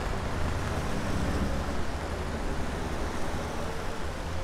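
Steady street ambience on a rainy city night: an even wash of rain and wet-road traffic noise over a low rumble.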